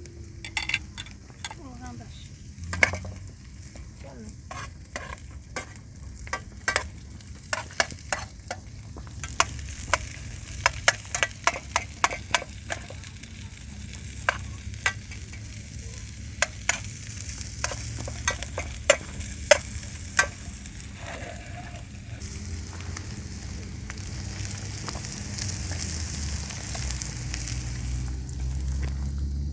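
Sizzling with many sharp crackles and pops, like food frying; a steady high sizzle grows louder from about 22 seconds in.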